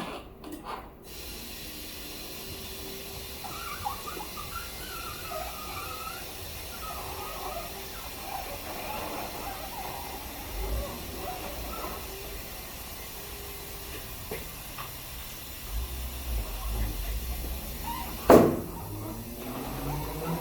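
Rubber tire bead squeaking and squealing as it is worked onto a 22-inch rim on a tire-changing machine, over a steady hiss, with one loud clunk near the end.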